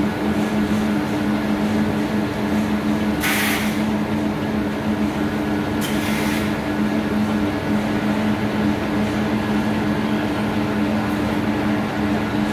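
Steady hum of running industrial machinery, a two-note drone over a noisy bed, broken by two short hisses about three and six seconds in.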